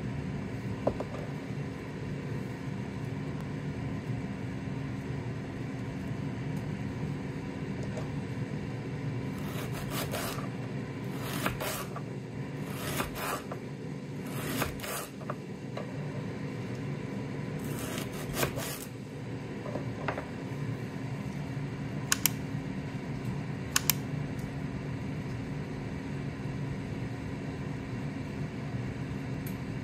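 Kitchen knife cutting through leek onto a wooden cutting board: runs of crisp cuts through the middle stretch, then a couple of single cuts. Under it, the steady hum of a Ninja Speedi air fryer running at 200 °C.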